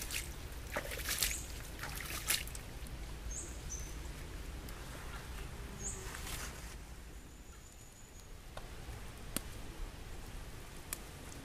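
Water splashing and trickling as wet hands handle live eels in a split banana-stem trough, with several sharp splashing and handling noises in the first couple of seconds and scattered clicks later. A few brief high bird chirps sound over the top.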